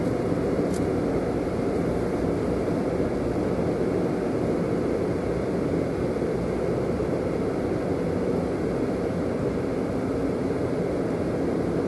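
Automated car wash machinery working around the car, heard from inside the closed cabin as a steady rushing noise.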